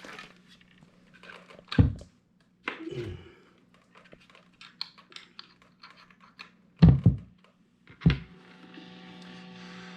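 Guitar amp popping and crackling with several loud thunks as the new 18-volt power adapter is plugged into the pedal chain, over a low amp hum. About eight seconds in, a steady buzzing whining hiss sets in and holds: noise from the new adapter, which appears to be faulty on the 18-volt output.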